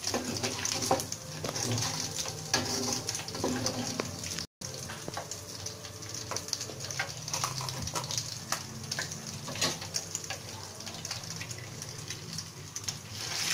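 Hot oil sizzling in a wok while fried galangal crumbs are scooped out and drained in a metal wire strainer, with frequent light clicks and scrapes of a metal ladle against the strainer. The sound cuts out for an instant about four and a half seconds in.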